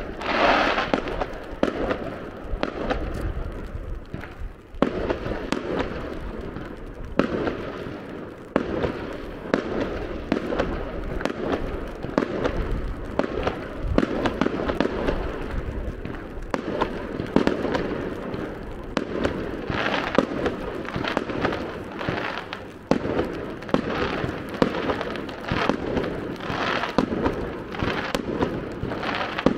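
Fireworks display: aerial shells bursting one after another in a rapid, unbroken series of bangs, with a loud burst right at the start.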